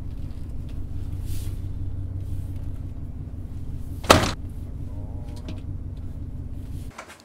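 Pickup truck engine idling with a steady low rumble, and a car door slamming shut about four seconds in. The rumble cuts off abruptly near the end.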